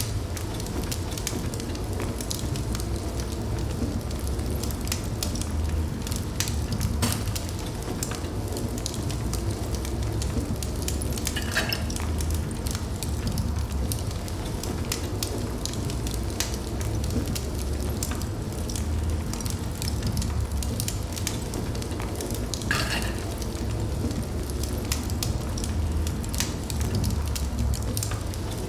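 Wood fire burning in a fireplace: a steady low rumble and hiss with frequent small crackles and a few louder pops.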